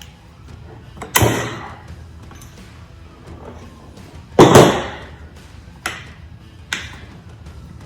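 Two loud sharp clattering knocks, about a second in and about four and a half seconds in, each ringing out briefly, then two lighter clicks near the end: hand tools and chainsaw parts being handled and set down on a bench during disassembly. Faint background music plays under it.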